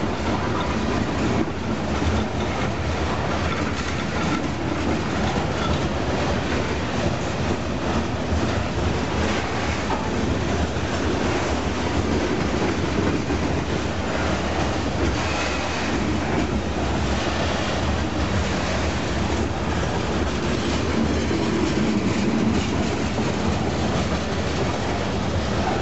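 Covered hopper cars of a long freight train rolling past close by: steel wheels running steadily on the rails in a continuous rumble.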